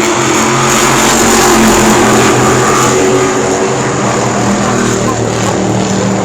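Race car engines running at speed as a field of stock cars laps the oval, several engine notes held steady and overlapping.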